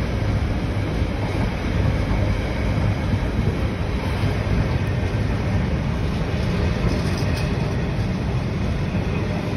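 Container flat wagons of a freight train rolling past, a steady low noise of wheels on the rails.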